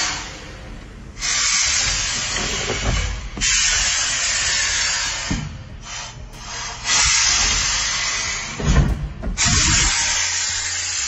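Water spray nozzle hissing in four bursts of about two seconds each, switched on and off, as water is sprayed onto a large fish. There is a low thump about nine seconds in.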